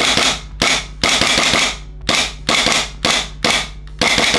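Custom RTP Glock gas-blowback airsoft pistol firing in semi-auto on green gas: about eight sharp shots in quick succession, roughly two a second, each with the slide blowing back.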